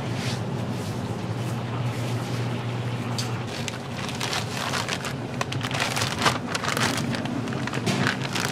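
Clear plastic zip-top bag crinkling and crackling as a seasoned raw cut of meat is slid into it and handled, starting about halfway through, over a steady low kitchen hum.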